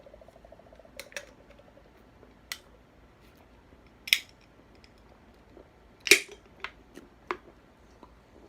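A faint hummed tone that fades within the first second, then a scattering of sharp clicks and cracks. The loudest come about four and six seconds in, with a few lighter clicks after the second.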